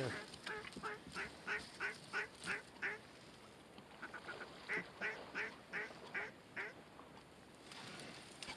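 Goose honks in two runs of evenly spaced calls, about three a second, the second run beginning about four and a half seconds in.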